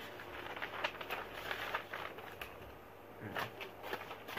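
Sheets of paper rustling and crackling as they are handled and held up, with a brief low vocal sound about three seconds in.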